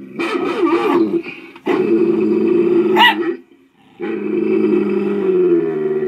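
A puppy growling in three long, drawn-out stretches, with a short bark about three seconds in.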